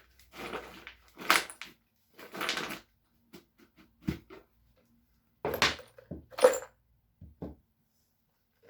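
A string of short scrapes, clicks and knocks from handling the rock tumbler's barrel and the tumbled bolts as they are taken out. The loudest come in a pair a little after halfway.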